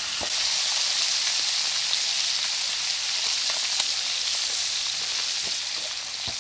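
Meat frying in oil in a glazed clay pan over a wood fire, a steady sizzle, with a few faint clicks.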